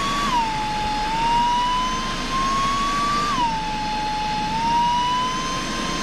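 Cordless stick vacuum cleaner's motor running with a high whine. Twice its pitch drops quickly and then climbs slowly back, as its power setting is changed from automatic mode.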